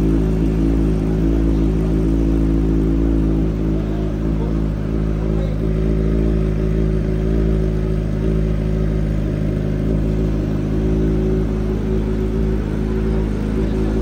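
Kawasaki Z1000R's inline-four engine idling steadily through an aftermarket slip-on exhaust with a blue titanium tip and carbon-fibre can.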